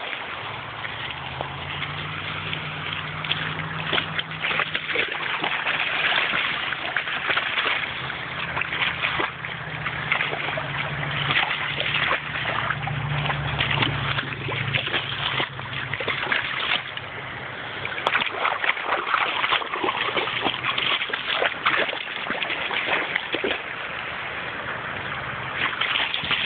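A dog wading through a shallow, stony creek, its legs splashing and sloshing the water in many quick irregular splashes over the running stream. A low steady hum sits underneath for about the first sixteen seconds.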